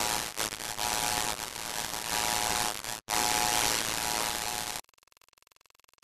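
Loud static hiss with a steady hum underneath, dropping out for an instant about 3 seconds in and cutting off suddenly near 5 seconds, leaving only faint noise.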